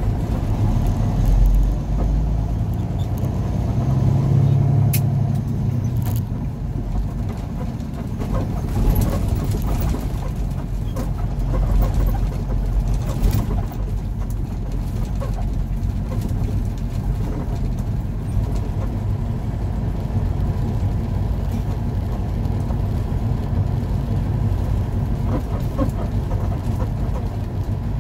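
Truck engine running with road noise, heard from inside the cab while driving in traffic: a steady low rumble that swells a little a couple of times early on.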